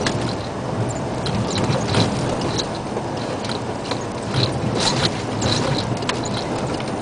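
Isuzu Giga dump truck driving slowly along a gravel road, heard from inside the cab: a steady low diesel engine drone with frequent irregular clicks and rattles.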